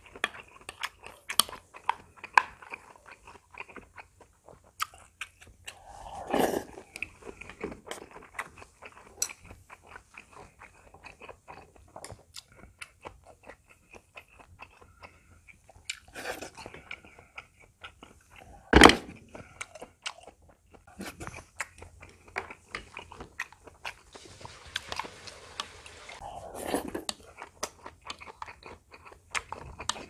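Close-miked eating sounds: steady chewing and crunching with wet mouth clicks and a couple of longer, louder mouth noises. A single sharp knock about two-thirds of the way through is the loudest sound.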